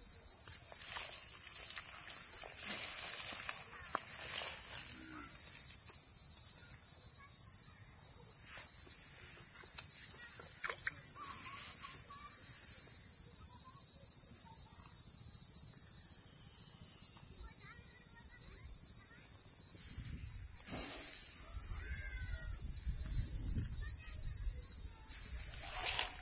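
Steady, high-pitched insect chorus, with a few faint chirps and a low rumble setting in near the end.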